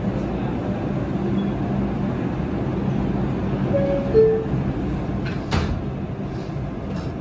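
R142A subway car running through a tunnel: steady rumble of wheels on rail with a low motor hum. A sharp knock comes about five and a half seconds in, and two brief short tones sound just before it.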